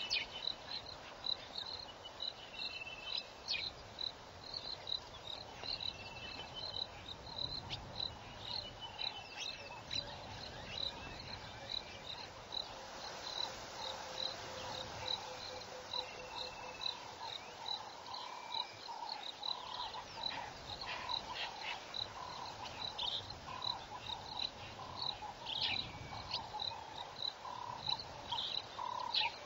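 Insects chirping in a steady train of short high pulses, about two a second, with scattered short bird whistles and, in the second half, a run of repeated mid-pitched calls.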